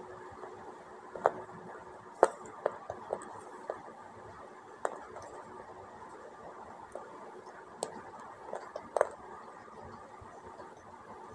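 Dried nakkumat clay and multani mitti paste being handled and eaten: a scattering of sharp, crisp crunches and clicks at irregular intervals, the loudest about two seconds in and near nine seconds, over a faint steady hiss.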